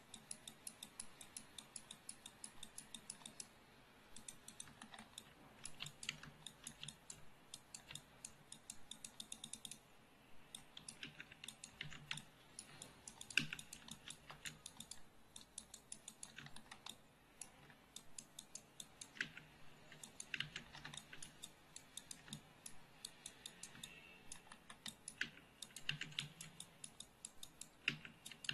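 Quiet, rapid clicking of a computer keyboard and mouse, a few louder clicks among them, with brief pauses about four and ten seconds in.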